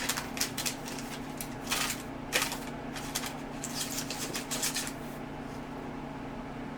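Crinkling and rustling of packaging with light clicks as small cotton filter inserts are unpacked and handled, stopping about five seconds in.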